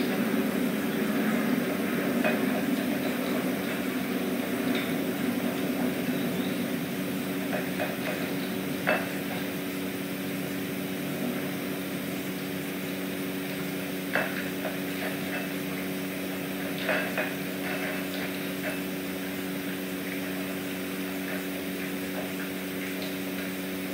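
Kittens eating from small bowls, giving a few light clinks and ticks at the bowls, over a steady room hum with a low tone in it.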